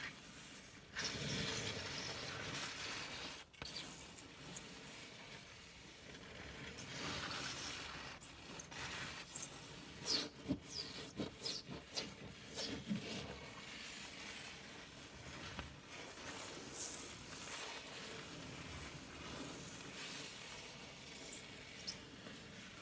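A long fingernail scraping across a stovetop to clean it, in irregular strokes with short high-pitched screeches, which come quickly in the middle; one stroke further on is the loudest.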